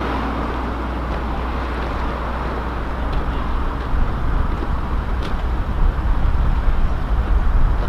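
Road traffic: car engines running with a steady low rumble and tyre noise, swelling a little about halfway through.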